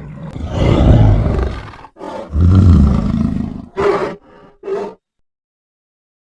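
King Kong roar sound effects: two long, deep roars of about a second and a half each, followed by two short grunts, then dead silence.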